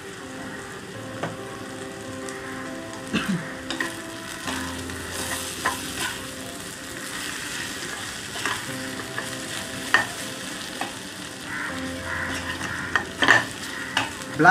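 Ground spices and onions frying in oil in a nonstick kadai, sizzling steadily while a slotted metal spoon stirs and scrapes through the masala, with occasional sharp clicks of the spoon against the pan.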